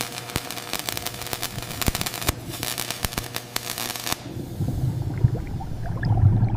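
Welding arc crackling and sizzling, a dense stream of sharp crackles that cuts off about four seconds in. It gives way to low, uneven bubbling and gurgling underwater.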